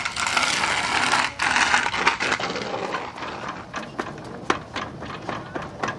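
A rushing, rustling hiss for the first couple of seconds, then a run of irregular sharp knocks and clicks as feet step on the slats of a playground bridge.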